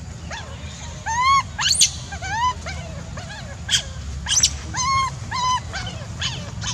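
Young macaque crying: a string of short, high-pitched whimpering calls, each rising and falling in pitch, about a dozen in quick succession.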